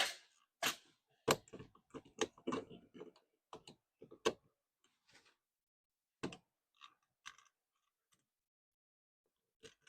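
Screws and small metal lock parts being handled: a quick run of sharp clicks and rattles in the first few seconds, then a few scattered clicks.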